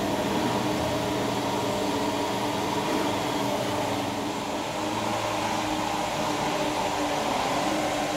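A steady mechanical hum with several sustained tones, even in level throughout.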